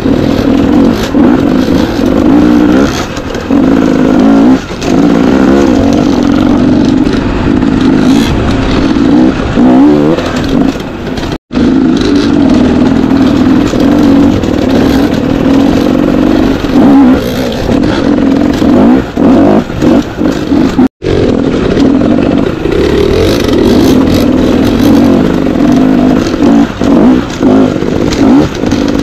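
Two-stroke enduro dirt bike engine running under load, its pitch rising and falling with the throttle as it is ridden. The sound cuts out completely for an instant twice, about a third and two-thirds of the way through.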